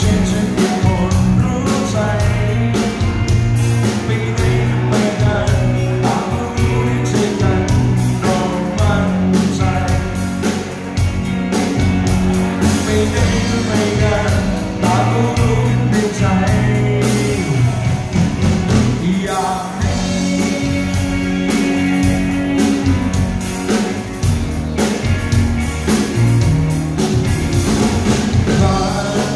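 A live rock band playing: a male singer over electric guitars, bass guitar and a drum kit.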